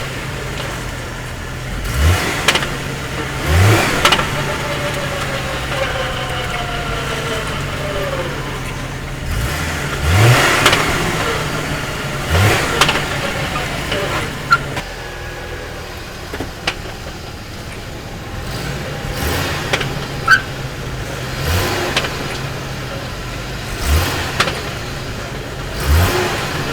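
Hummer H3 with its engine running steadily, broken every few seconds by short clunks from the truck, about a dozen in all, some coming in pairs.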